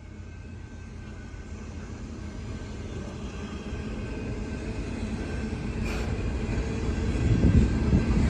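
Diesel freight train approaching, led by a GE ET44AC locomotive: a low engine and rail rumble that grows steadily louder.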